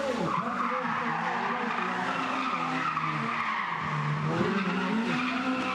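Small hatchback race car's engine revving, rising and falling in pitch repeatedly, with tyres squealing on tarmac as it is driven hard through turns.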